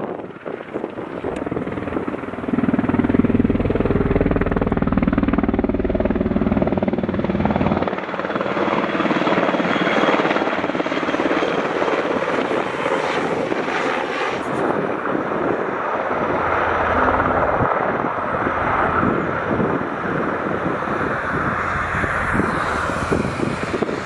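Helicopter turbine and rotor noise. A steady low hum comes first, then from about eight seconds in the rapid, regular beat of an NH90 naval helicopter's rotor as it flies low past and hovers.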